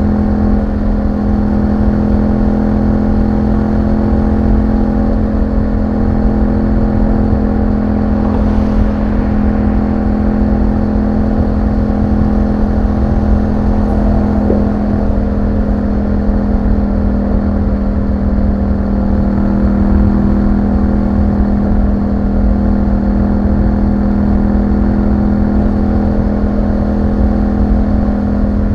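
2021 Yamaha MT-07's parallel-twin engine through an Akrapovic exhaust, running at steady revs while the bike cruises, with a low rumble of road and wind noise underneath.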